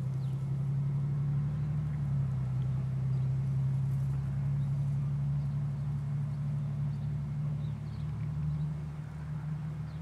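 Engine idling steadily, a continuous low hum.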